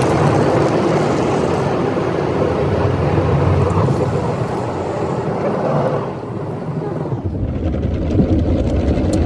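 Automatic car wash running over the car, heard from inside the cabin as a loud, even rushing noise. It dies away about six seconds in, leaving a low rumble.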